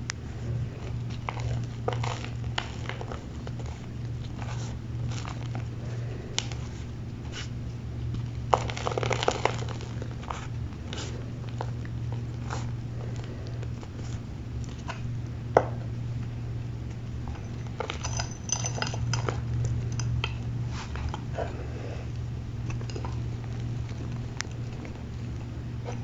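Gym chalk block being crushed and crumbled by hand: scattered crunches and crackles, denser about nine seconds in and again around eighteen to twenty seconds, over a steady low hum.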